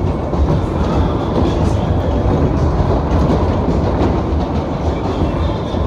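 A Maxwell Waltzer running at speed, heard from inside a spinning car: a loud, steady rumble and clatter of the platform rolling round its track.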